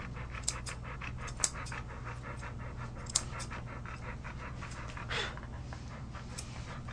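Airedale Terrier panting rapidly and steadily, with a few sharp snips of grooming shears trimming the fur at its paw.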